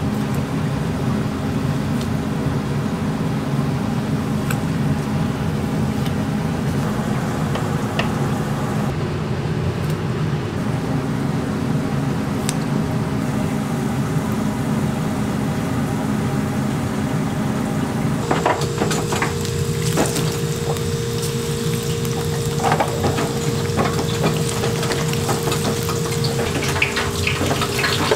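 Dough sticks deep-frying in a commercial fryer: the oil bubbles and sizzles over a steady kitchen hum. About two-thirds of the way in the sizzle grows busier and crackling, with a steady tone and a few sharp metal clicks from the tongs.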